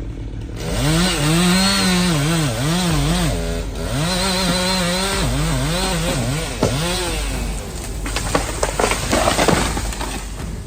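Two-stroke chainsaw revving hard, its pitch dipping and rising again and again as it cuts. It is followed near the end by a run of irregular sharp cracks and knocks.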